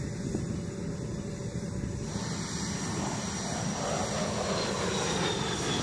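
Jet aircraft passing overhead: engine noise swells about two seconds in, and a high whine falls in pitch near the end.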